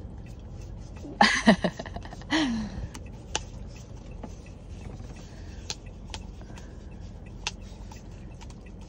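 Basset hound licking whipped cream out of a paper cup: irregular wet licking clicks and smacks. Two short vocal sounds come about a second and two seconds in.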